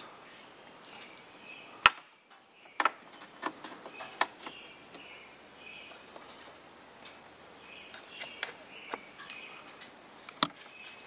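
Plastic clicks and snaps of electrical connectors and clips being worked loose by hand on a Porsche 991 Turbo's air filter housing: a loud snap about two seconds in, a run of smaller clicks after it and later, and another loud snap near the end.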